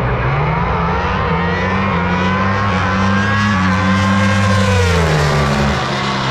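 Drag race car engine accelerating hard down the strip, its pitch climbing for about four seconds and then dropping away near the end.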